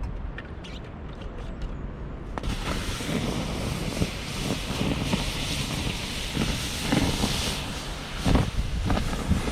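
Water poured onto hot campfire embers, hissing and steaming, starting suddenly about two seconds in and holding steady, with a few dull knocks and thumps. The sound of a campfire being put out with water.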